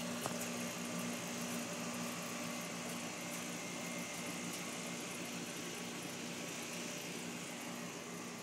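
Outdoor central air-conditioner condenser unit running: a steady low hum under the even rush of its fan.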